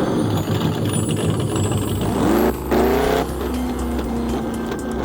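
Car engine revving, with two quick rising revs about two and a half seconds in, over background music.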